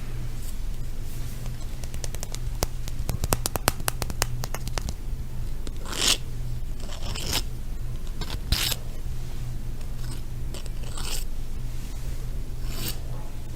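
Close-miked ASMR handling sounds: a quick run of light taps or clicks, then several separate short scraping strokes a second or so apart, over a steady low hum.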